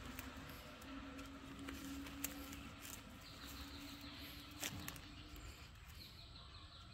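Faint outdoor ambience with a low steady hum that fades about five seconds in, a few sharp clicks, and two short runs of rapid high chirping.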